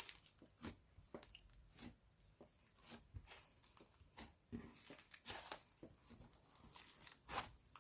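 Slime being handled by hand, giving faint, irregular crackles and clicks.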